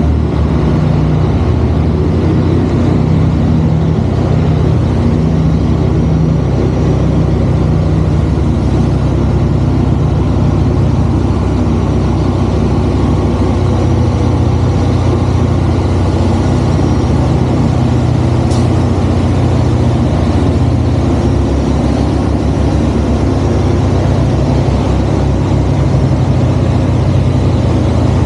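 Heavy Kenworth C500 truck's diesel engine, a Cummins ISX, running steadily at a low, even pitch that drifts a little, with one sharp click about two-thirds of the way through.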